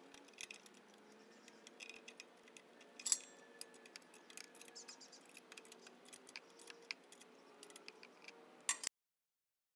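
Faint, irregular metallic clicks and ticks of a 12 mm wrench working bolts tight on a steel mounting bracket, with one sharper clack about three seconds in. The sound cuts off abruptly near the end.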